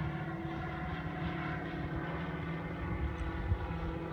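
Motorhome driving at a steady speed: a constant engine drone with road noise.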